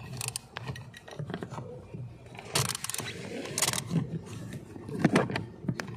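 Hands working plastic parts and wiring under a dashboard while fitting a blower motor speed control module: irregular clicks, scrapes and rustling. There are two short hissing rubs near the middle and a louder thump about five seconds in.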